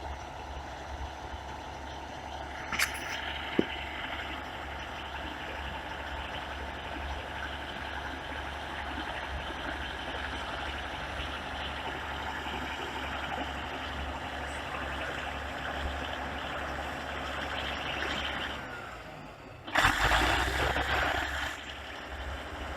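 BEML BD155 bulldozer's diesel engine running steadily, with a sharp click about three seconds in. Near the end the sound dips, then a loud rush of noise lasts about two seconds.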